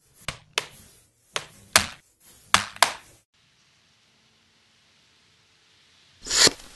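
About six sharp taps in the first three seconds, spaced unevenly, then a short, louder burst of noise near the end.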